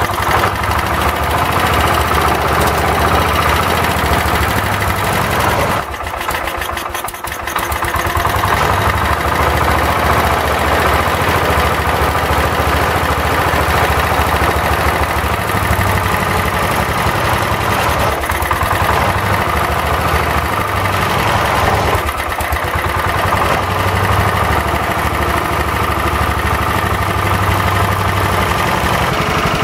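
Kohler K321 14 hp single-cylinder engine running steadily on its test run after a carburetor rebuild and new points and condenser, its note dipping briefly about six seconds in and again around twenty-two seconds in. The owner notes a slight rod knock in it.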